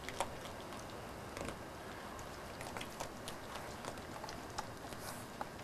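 Faint, scattered small clicks and crunches of a deer and a raccoon eating scattered feed off the ground, over a steady hiss.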